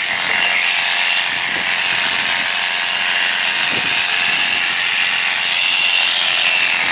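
Electric sheep-shearing handpiece running steadily with an even high whine while wool is shorn off a sheep.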